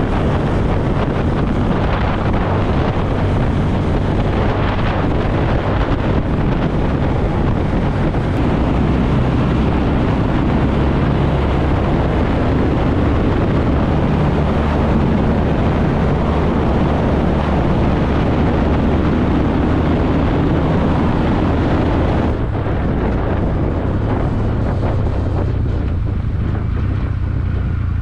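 Motorcycle engine running at a steady cruising speed, under heavy wind rushing over the microphone. The wind eases somewhat about three-quarters of the way through.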